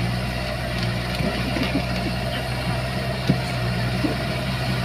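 Komatsu bulldozer's diesel engine running steadily, with a few short metallic knocks, the loudest about three seconds in.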